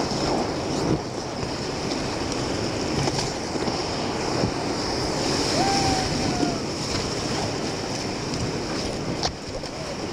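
Steady rush of fast whitewater around a raft on a river running high, with wind buffeting the microphone.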